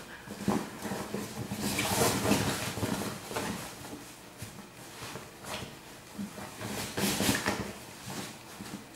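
Small dog chewing and pawing at a fabric dog-bed cushion: irregular scratching, rustling and tugging of the cloth, loudest about two seconds in and again about seven seconds in.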